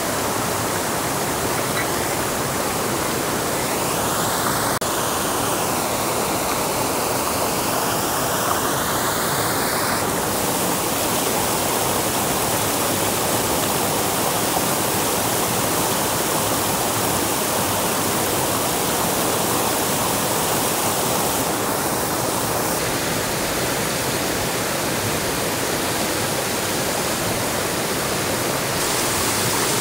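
Steady rushing water noise, dense and even, with its tone shifting abruptly a few times.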